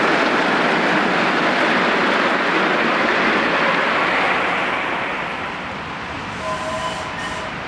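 Miniature steam train passing on the track: a steady rushing rumble of wheels on rail and steam that fades away over the last few seconds as the train moves off.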